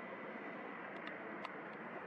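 Steady outdoor background hiss with no clear single source, with a couple of faint clicks about a second in and again near one and a half seconds.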